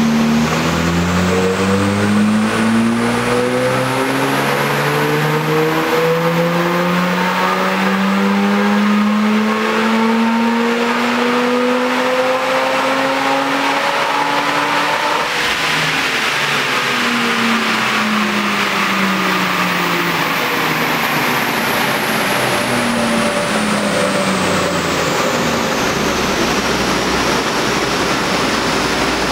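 Mazda RX-8's two-rotor rotary engine in a dyno pull on a rolling road. The revs climb steadily under load for about fifteen seconds, then the engine note falls away for the rest.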